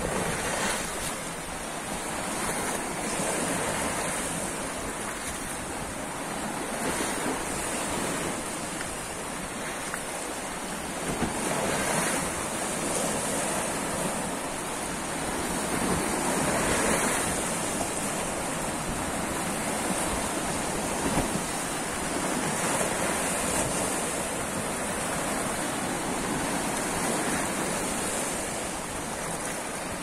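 Sea waves washing against and over the edge of a concrete sea wall, breaking into foam: a continuous wash that swells every four or five seconds.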